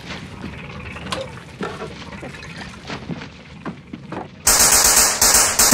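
Scattered small clicks and rustles of a duffel bag being handled over a low steady hum. About four and a half seconds in, loud music with drums cuts in suddenly.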